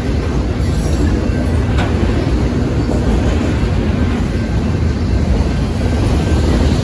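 Autorack cars of a freight train rolling past, a steady rumble of steel wheels on rail, with one sharp clank about two seconds in.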